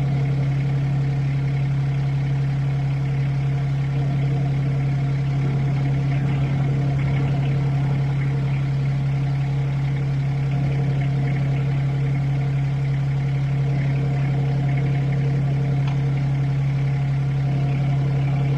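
Compact RK25 tractor's diesel engine running steadily at a constant speed, with an even drone that holds one pitch.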